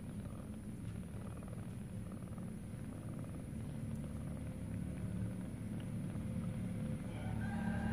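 Steady low purring from a mother cat and her nursing kittens while the kittens suckle. A faint higher-pitched tone comes in near the end.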